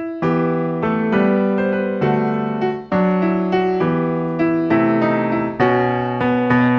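Background music: a piano or electric piano playing a melody over held chords.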